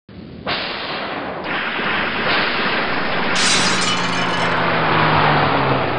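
Crash sound effect: a loud, noisy crashing and breaking rush that cuts in abruptly out of silence. A brighter burst comes about three seconds in, and a low tone glides down in pitch near the end.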